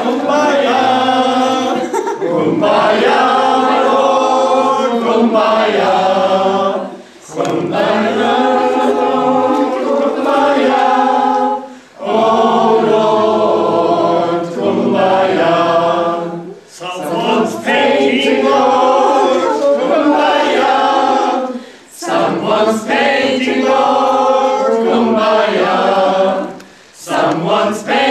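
A group of men and women singing together unaccompanied, in phrases of about five seconds with short breaks for breath between them.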